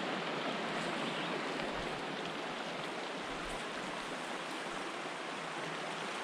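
Peshtigo River rapids rushing: a steady, even hiss of moving water.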